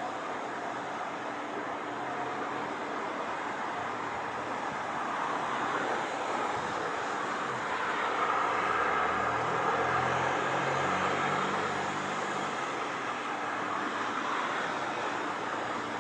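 Steady jet noise from a Boeing KC-767 tanker's twin turbofan engines at taxi power as it rolls along the taxiway. The noise swells a little for a few seconds near the middle, with a low hum beneath it.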